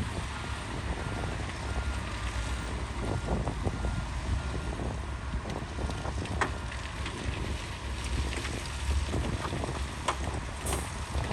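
Heavy diesel earthmoving machinery running with a steady low rumble, buffeted by wind on the microphone, with a couple of short clanks about six and ten seconds in.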